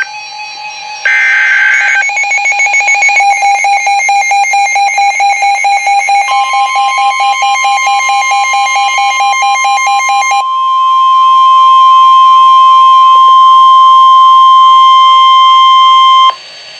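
NOAA Weather Radio receiver sounding an Emergency Alert System alert for a lake effect snow warning. It opens with a short screech of SAME data tones, then a rapidly pulsing beep for about eight seconds, then the loud steady 1050 Hz warning alarm tone, which cuts off abruptly near the end.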